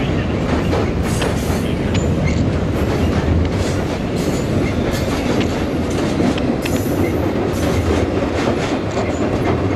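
Passenger cars of a train rolling past over a railroad bridge: a steady rumble with the repeated clack of the wheels over the rail joints.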